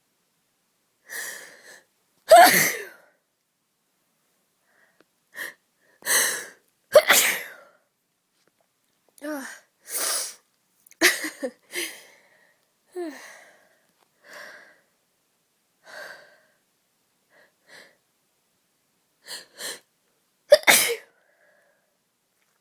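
A person sneezing again and again from a bad cold: about half a dozen loud sneezes, the loudest near the start, with shorter, quieter breaths between them and a final loud sneeze near the end.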